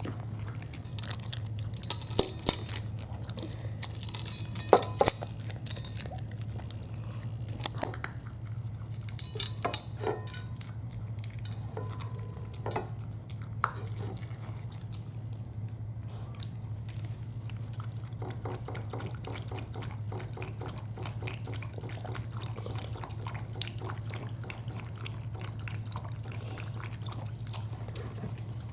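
Scattered clicks and taps, like a small dog's claws and teeth on hard plastic, as a mame shiba paws and bites at a stalled vacuum cleaner. They are busiest in the first half, over a steady low hum.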